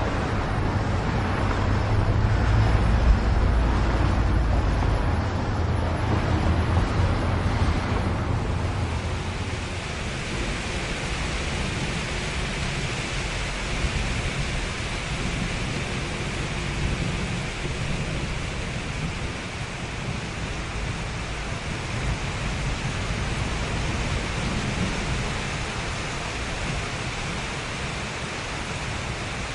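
City ambience: a steady low rumble of traffic for about the first eight seconds, then it fades into an even, constant hiss.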